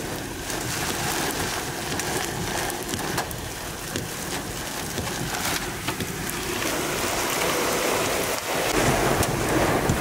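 Heavy thunderstorm rain falling on a vehicle, heard from inside: a steady hiss of rain dotted with sharp taps of drops striking the glass and body. A lower rushing noise of wind comes in near the end.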